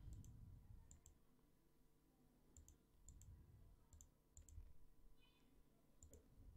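Faint computer mouse clicks, several short press-and-release ticks spread through the stretch, over near-silent room tone.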